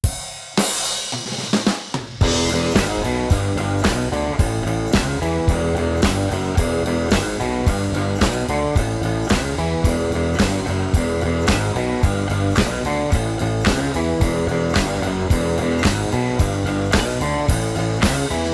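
Background music: a rock band with drum kit and guitar, starting with a short build-up, then a steady beat of about two drum hits a second.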